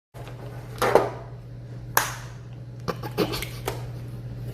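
Several sharp knocks and taps, about a second in, at two seconds and in a cluster from three to nearly four seconds, over a steady low hum.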